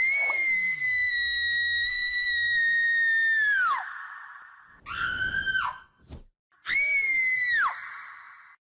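High-pitched human screams from a horror sound-effects clip: one long held shriek of nearly four seconds, then two shorter ones, each breaking downward in pitch at the end and trailing into an echo.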